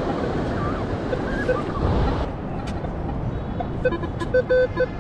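Wind and surf rush on the microphone. From about three and a half seconds in, a Minelab Manticore metal detector beeps in a quick, even series of short mid-pitched tones, signalling metal under the coil.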